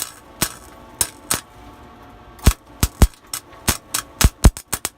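A Harbor Freight wire-feed welder's arc striking and cutting out, giving a string of sharp, irregular pops, at times several in quick succession near the end. The arc is not holding: the weld is not taking yet.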